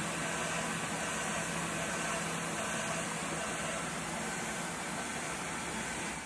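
Gerber Sabre CNC router running with its dust extraction, a steady rush of noise over a low, even hum. It fades out right at the end.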